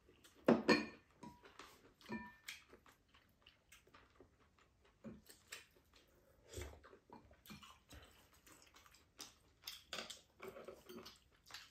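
Eating at the table: spoons and chopsticks clicking against ceramic bowls, with chewing, as a string of short uneven ticks and one louder clink about half a second in.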